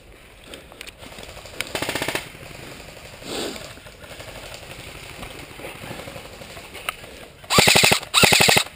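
Airsoft electric rifle firing full-auto bursts: a short rapid burst about two seconds in, then two loud bursts back to back near the end.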